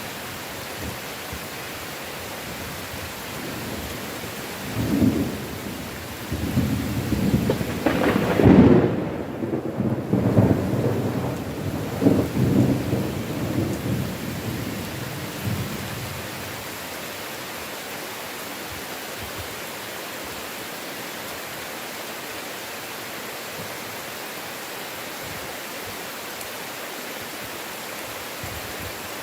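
Heavy rain falling steadily, with a long roll of thunder that builds about four seconds in, is loudest around eight to ten seconds in, and rumbles away by about sixteen seconds.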